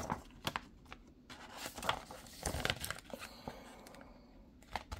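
Paper cover insert rustling against a clear plastic Blu-ray case as it is turned around to its reverse side and slid back in, with a few light plastic clicks from the case, the sharpest near the end.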